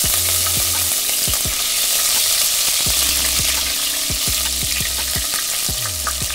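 Chopped garlic and green chillies sizzling in hot oil in a non-stick kadhai, stirred with a silicone spatula. A steady frying hiss that eases slightly toward the end.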